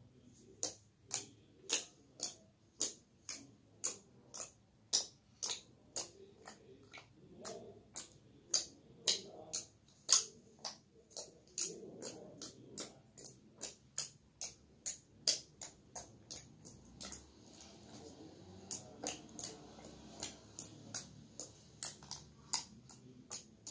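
Jelly slime being squeezed and worked by hand, giving a run of sharp clicks and pops, about two a second, some much louder than others.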